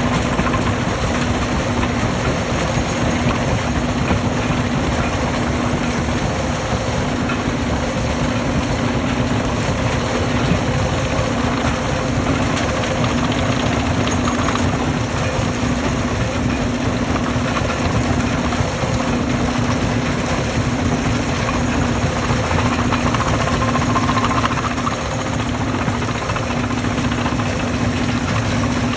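Stone crushing machine running: a continuous heavy mechanical rumble with a steady low hum.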